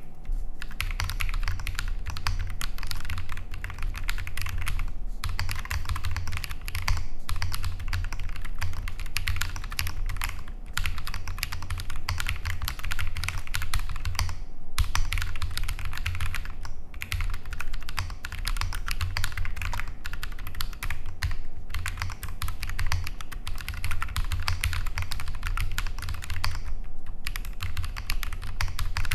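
Fast, continuous typing on a Bear 65 gasket-mounted mechanical keyboard with lubed Holy Panda tactile switches, a PC plate with Poron foam, and JTK keycaps. The rapid keystrokes stop for brief pauses every few seconds.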